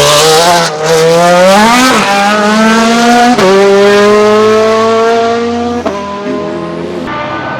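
Ferrari F430 GTC's 4.0-litre V8 racing engine accelerating hard, its pitch climbing and then dropping sharply at gear upshifts about two and three and a half seconds in. A last change near six seconds in is followed by a quieter engine note.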